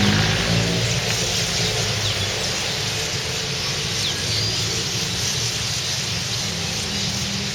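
A passing vehicle's engine fades out within the first second, leaving a steady hiss with a few faint, brief bird chirps.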